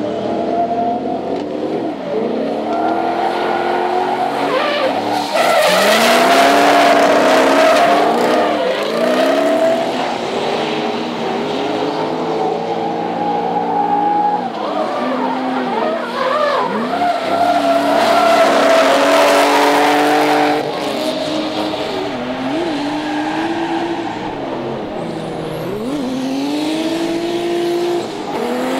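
Drift cars' engines revving up and down hard, among them a BMW E30 running a V8 from an E39 M5, with tyres squealing and skidding. The tyre noise is loudest from about five seconds in and again around eighteen to twenty seconds.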